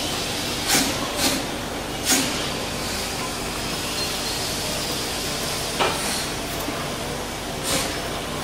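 Narrow-gauge 0-6-0 steam locomotive standing with steam hissing, and a handful of short, irregular puffs of steam or exhaust, two of them close together about a second in. A steady mechanical drone sits underneath.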